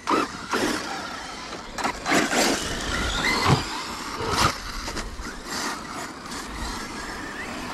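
Electric RC car driving, slightly geared down, with several short bursts of acceleration and tyre scrabble and a motor whine that rises and falls.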